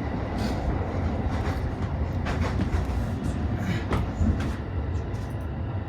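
Inside an E531-series electric train running: a steady low rumble of wheels on rail, with irregular clicks and knocks from the track.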